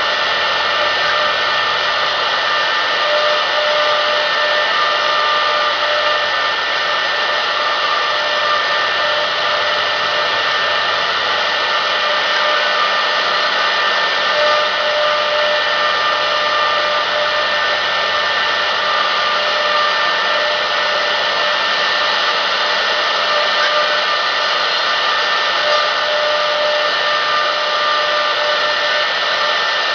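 CNC router spindle running at high speed, its ball-nose bit carving a wooden block turned in a rotary-axis chuck. The whine is steady and sits over the noise of the cut.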